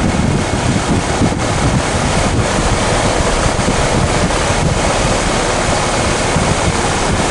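2020 Heil 1.5-ton heat pump outdoor unit running in heat mode: a steady, even rush of fan airflow and compressor, with wind buffeting the microphone.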